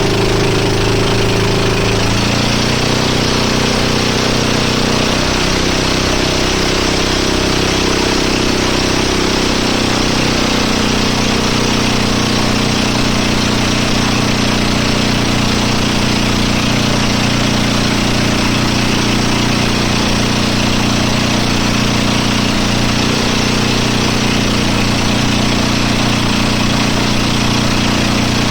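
Motorboat engine running steadily under a loud rushing noise, its pitch shifting about two seconds in and again around ten seconds in.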